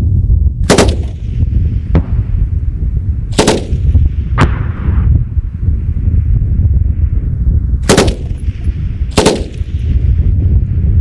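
Single rifle shots, five in all and unevenly spaced: one about a second in, two around the middle, two more near the end. Each shot is followed by a short echo, and one of them is fainter than the rest. A heavy rumble of wind on the microphone runs underneath.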